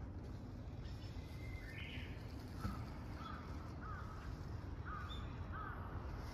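A crow cawing in a run of about five short calls, evenly spaced, with one higher call just before them. A steady low rumble of outdoor background noise runs underneath.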